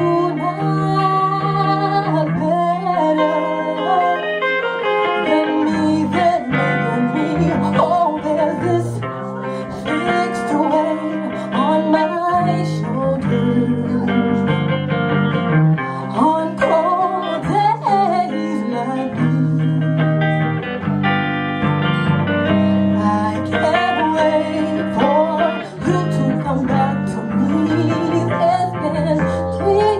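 Live music: guitar accompaniment over steady bass notes, with a wavering melody line on top.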